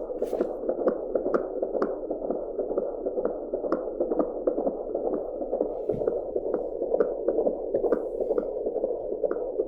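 Fetal heartbeat picked up by an Angel Sounds handheld fetal Doppler: fast, evenly spaced whooshing beats, about two to three a second, over a steady hiss.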